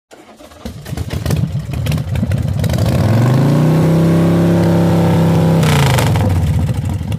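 Motorcycle engine starting and running roughly, then revving up about three seconds in and holding a steady high rev for a couple of seconds before dropping back. A short rush of hiss comes just as the revs fall.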